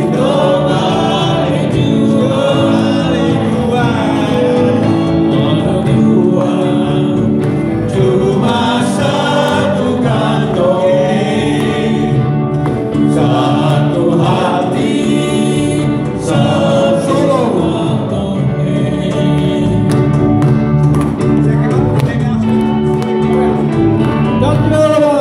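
Live band music with guitars, and several voices singing together over it in a group sing-along.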